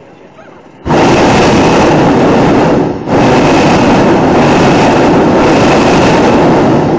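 Hot air balloon's propane burner firing in loud blasts. It cuts in abruptly about a second in, breaks for a moment around three seconds, then fires again and stops just before the end.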